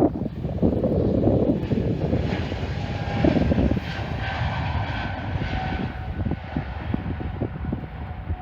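Airliner's engines passing overhead: a low rumble with a steady whine that slowly fades toward the end.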